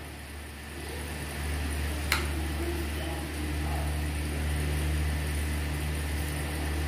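Steady low machine hum that grows slightly louder about a second in, with one sharp click about two seconds in.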